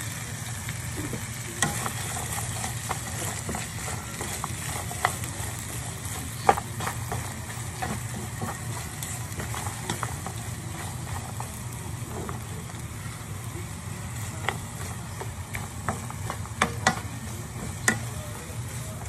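Pork and chicken pieces with sliced onions sizzling in a frying pan as a spatula stirs them, with a few sharp knocks of the spatula against the pan.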